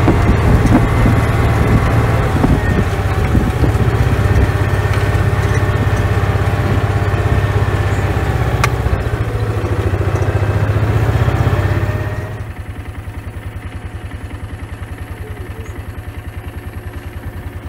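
Side-by-side utility vehicle's engine running steadily, then dropping to a lower, evenly pulsing idle about twelve seconds in.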